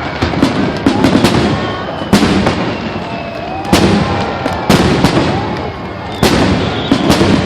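Fireworks finale: a rapid barrage of aerial shell bursts, a loud bang about every second with smaller crackling reports between them.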